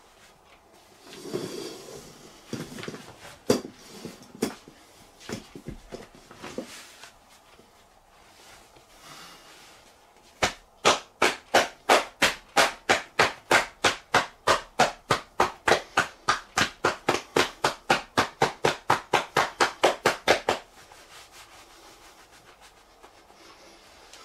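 Self-massage of the lower back by hand over a shirt: some rubbing and a few slaps at first, then about ten seconds of steady rhythmic tapping, roughly three to four blows a second, which stops abruptly.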